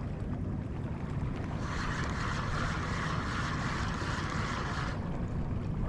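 Fishing boat at sea: a steady low rumble with wind on the microphone, and a hiss that comes in about two seconds in and stops about five seconds in.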